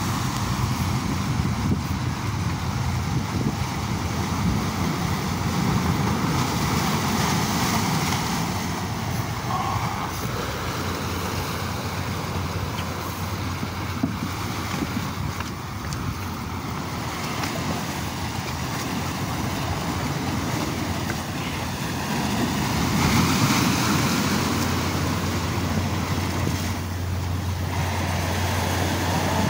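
Sea surf breaking and washing over shoreline rocks, with wind on the microphone. A continuous rush that swells louder twice as bigger waves come in.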